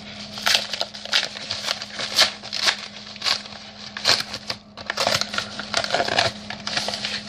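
Packaging being torn and crinkled open by hand: a quick run of irregular crackling rustles and scrapes, with a faint steady hum underneath.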